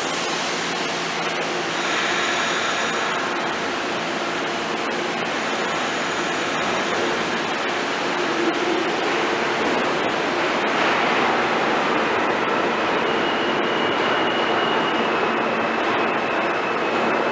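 New York City subway train moving through an underground station: a continuous rumble and rail noise, with faint steady whining tones and a thin high tone in the last few seconds.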